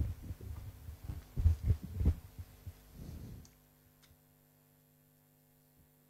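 Handheld microphone being handled and lowered: several dull low thumps and rubbing in the first three seconds or so. After that only a steady low hum from the sound system remains.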